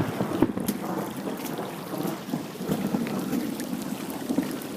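Heavy rain falling, with many drops striking close to the microphone as sharp ticks, and an uneven low rumble of thunder underneath.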